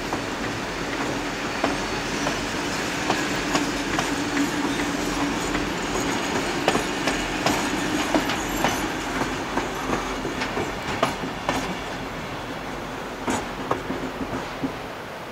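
Wooden-bodied heritage passenger carriages rolling past, their wheels clicking over the rail joints above a steady rolling rumble. The clicks thin out and the sound drops away near the end as the last carriage goes by.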